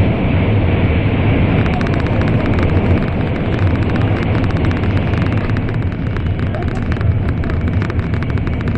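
Passenger-cabin noise of an N700-series Shinkansen running at speed through a tunnel: a loud, steady rumble heavy in the low end. A dense crackle of fine clicks joins it about two seconds in.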